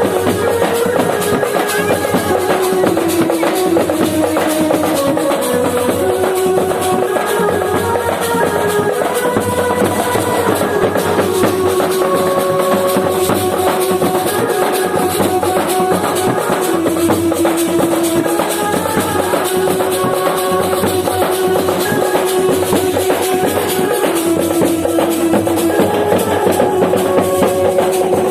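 Music: a melody line that steps between held notes over steady drum and shaker-type percussion.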